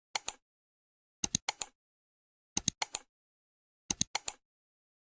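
Clusters of sharp clicks, two to four in quick succession, repeating about every second and a third with dead silence between.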